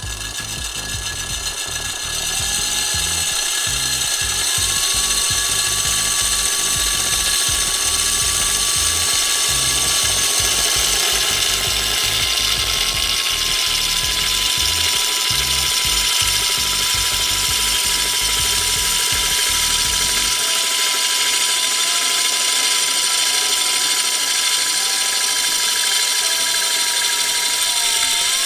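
Milwaukee Fuel cordless drill whining steadily as a diamond hole saw grinds into a glass jar, its pitch stepping up a few seconds in and then sagging slightly under load.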